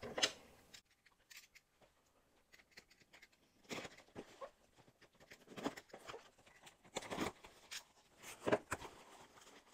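Faint scrapes and taps of a cardboard shipping box being cut open with a utility knife and its flaps pulled back, starting about three and a half seconds in.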